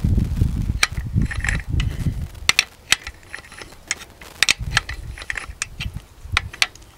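Wrench ratcheting as it turns a turnbuckle tighter on a steel tree-support cable: a series of sharp, irregular clicks, with a low rumble underneath in the first couple of seconds.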